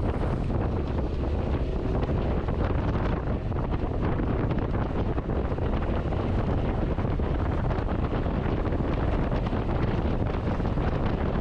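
Steady wind buffeting the camera microphone while riding a Honda ADV 350 scooter, with a low rumble of road and vehicle noise underneath.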